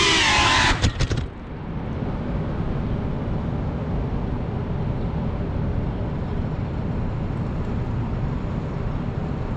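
A GePRC Cinelog 35 FPV drone's motors whine with wavering pitch, then a few quick knocks as it touches down and the motors cut out about a second in. After that comes a steady low outdoor rumble.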